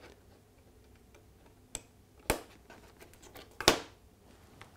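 Small sharp plastic clicks as the little spring cover is snapped back onto the underside of a Peco model railway point and the point is handled on the baseboard. There are three distinct clicks, the last the loudest, with faint ticks between.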